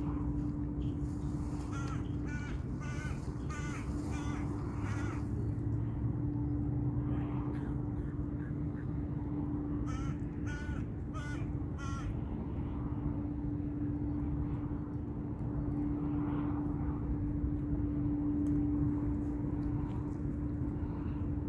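Crows cawing in two bouts of repeated calls, a couple of seconds in and again about halfway, over a steady low hum and a background rumble.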